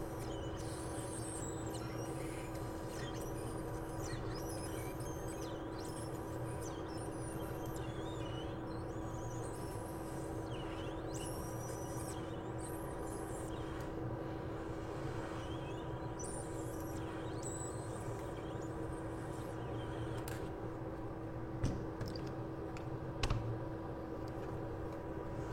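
Steady hum of a bench fan with a fixed low tone, with faint high squeaks of a blade working on the circuit board and two sharp clicks near the end.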